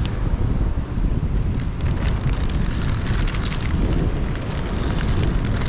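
Wind buffeting the microphone over sea washing across rocks, with a dense crackling, fizzing hiss building up after about a second and a half.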